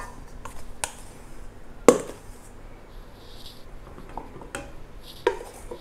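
A few sharp knocks and clinks of kitchen bowls and utensils being handled, the loudest about two seconds in, with quiet stretches between; the mixer is not running.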